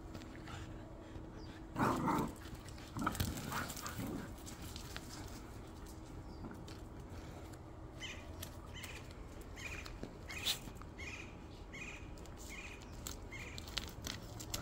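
A dog vocalizing in short bursts about two and three seconds in. Later comes a run of faint, evenly spaced ticks, about two a second.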